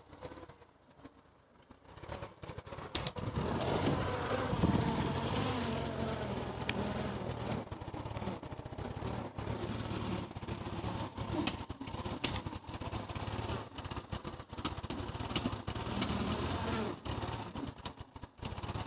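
The gas engine of an old Ford skid loader starts about two or three seconds in and runs unevenly, with a few sharp pops: backfiring, which the owner puts down to a carburetor that needs cleaning and a tune-up.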